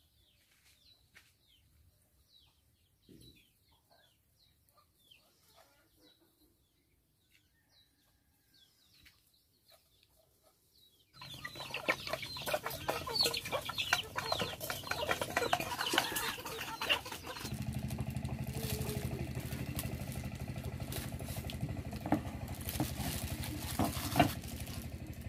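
Faint small-bird chirps at first. About eleven seconds in, a flock of yard chickens starts clucking and calling, and a few seconds later a steady low hum joins in.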